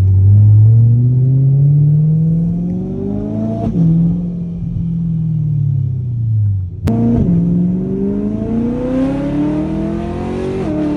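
Straight-piped BMW E92 M3's V8 heard from inside the cabin. The engine note climbs under acceleration for about four seconds, then falls away as the car eases off. After a sharp click about seven seconds in it climbs again, with a brief break near the end.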